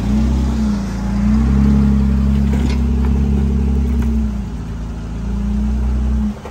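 Jeep Wrangler JK's V6 engine revving under load while it crawls up a rock ledge. The revs climb about a second in, are held for a few seconds, drop back, then rise again before falling off sharply near the end.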